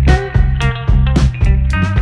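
Background music: an upbeat guitar-led rock track with a steady beat and bass.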